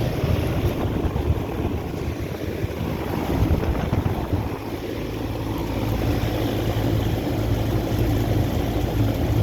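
Air conditioner condensing units running: a steady low compressor hum under the even rush of the condenser fans.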